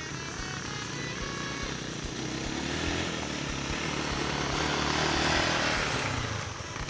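Dirt bike engine running as it rides along a dirt track toward the microphone, growing louder to a peak about five seconds in and fading near the end.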